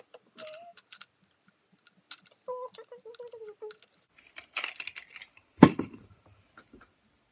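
Makeup palettes, compacts and brushes being handled: scattered light clicks and taps. There is a short hum-like tone about two and a half seconds in, a brief hiss around four and a half seconds, and a single loud knock just before six seconds.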